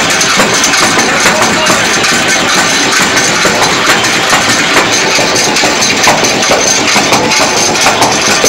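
Naswar-making machine running: motor-driven drum and pestle churning snuff, a loud steady mechanical din.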